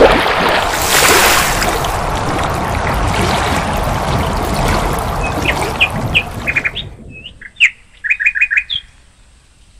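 A water-splash sound effect: a sharp splash, then a loud rushing wash that cuts off about seven seconds in. A small bird's chirps come in under its end and carry on alone afterwards, with a quick run of short notes near the end.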